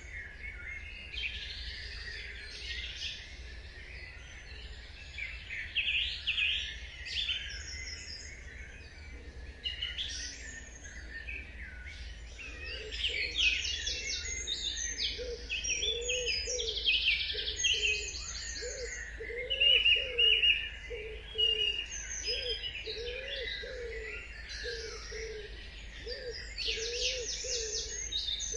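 Dawn chorus: many songbirds chirping, trilling and whistling over one another. About halfway through, a low call starts repeating at a steady pace under the chorus.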